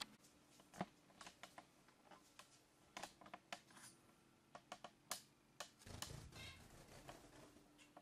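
Near silence in a quiet room, broken by faint, scattered light clicks and ticks.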